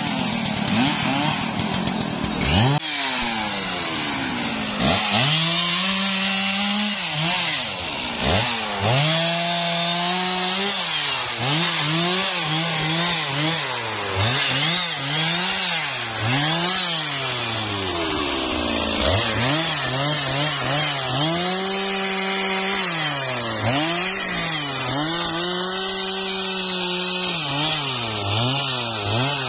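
Large Stihl two-stroke chainsaw revved up and down over and over, climbing to high revs, holding there for a second or two, then dropping back, as it cuts through the trembesi tree's wood and branches. In the first couple of seconds a steadier engine sound is heard instead.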